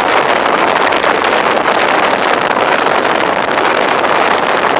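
Motorboat under way, its steady running noise mixed with a constant rush of wind on the microphone.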